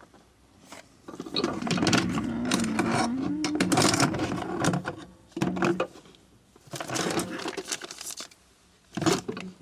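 Rummaging through a metal tool cabinet: tools clinking and scraping against each other in two spells with a short pause between, and a sharp click near the end.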